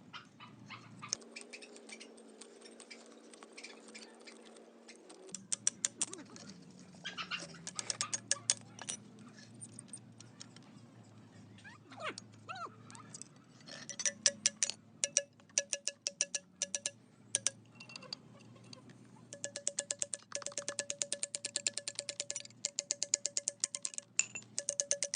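Hand tools working on metal motorcycle parts: scattered sharp metallic clicks and taps, then long runs of rapid, even ticking with a metallic ring, like a ratchet wrench turning.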